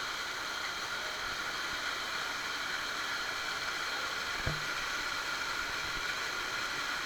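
Waterfall rushing steadily, with one short knock about four and a half seconds in.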